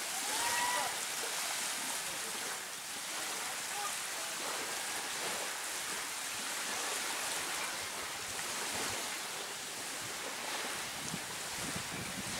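Steady wash of small waves breaking on a sandy shore, with a little wind on the microphone. A brief whistled note sounds about half a second in.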